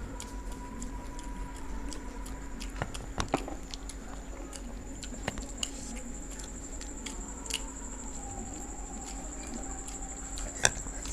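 People chewing and biting food, with scattered small clicks and taps.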